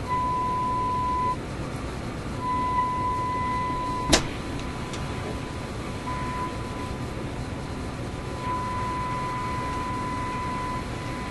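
RCA A25 vacuum-tube shortwave radio's speaker giving a steady mid-pitched test tone from a signal generator over static hiss. The tone fades in and out about four times as the dial is tuned across the signal. A single sharp click comes a little past four seconds. The signal comes in at 16.1 on the dial rather than 15.8, so the shortwave band is out of alignment.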